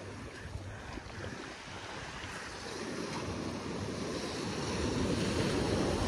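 Sea surf washing, mixed with wind rumbling on the microphone, slowly growing louder.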